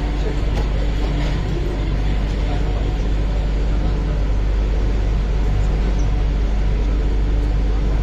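Cabin running noise of an MTR Q-Train metro car: a steady rumble as the train pulls into a station.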